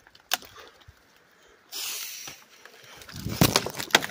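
Someone pushing on foot through dense forest undergrowth: a single sharp crack early on, a brief rustling hiss about halfway, then a quick run of twig cracks and footstep thumps near the end.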